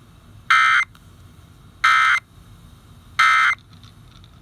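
Emergency Alert System end-of-message data tones: three short, identical bursts of digital tones a little over a second apart, marking the end of the alert broadcast.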